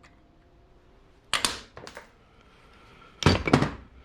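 Hammer and punch striking metal, knocking the pins out of a paintball marker's metal body: a few sharp metallic strikes in two groups, about two seconds apart.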